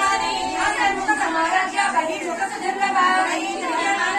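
A group of women singing a devotional hymn together.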